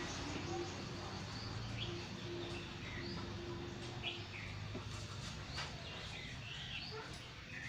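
Birds chirping in the background: short, scattered chirps over a low steady hum.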